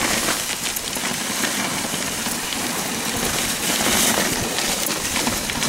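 Dog sled running over a snowy trail behind a husky team: a steady rushing noise of the moving sled with a low, uneven rumble underneath.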